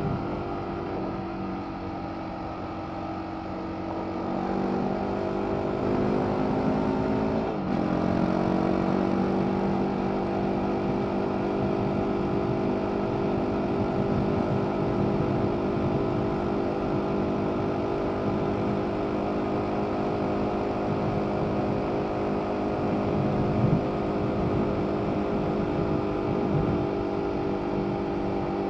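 BMW G 310 R's single-cylinder engine through its stock Euro 5 exhaust, heard from the rider's seat under way. The revs climb slowly, drop sharply just under eight seconds in, then hold a steady cruise, with wind and road noise throughout.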